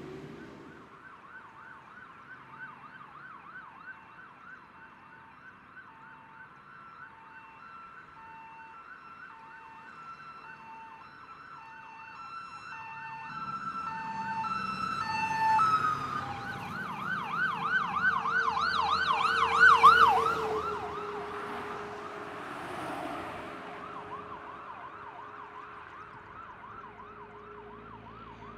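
Fire truck responding with its electronic siren: first a two-tone alternating wail, then a fast yelp about halfway through that grows loud with engine rumble as the truck passes, and fades away after.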